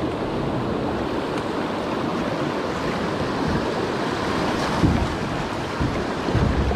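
Steady rush of moving river water, with low rumbles of wind buffeting the microphone, stronger about five seconds in.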